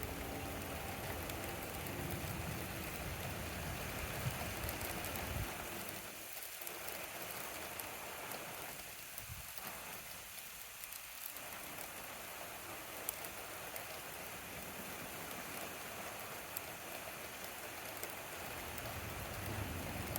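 Steady rain falling during a thunderstorm, with a few louder single drips. A low rumble stops about five seconds in.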